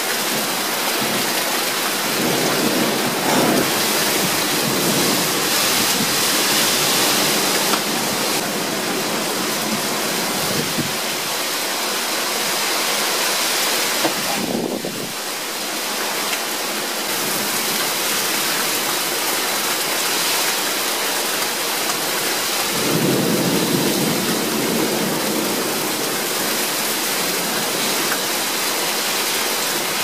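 Severe thunderstorm: heavy rain and strong wind make a dense, steady noise. Low rumbling swells about three seconds in and again from about twenty-three to twenty-seven seconds.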